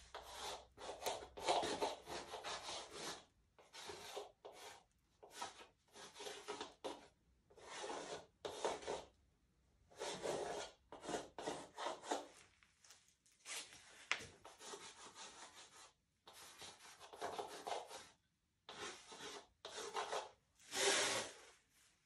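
Pencil scratching across a bare wooden panel while sketching out large letters, in irregular strokes from a fraction of a second to about two seconds long with short pauses between.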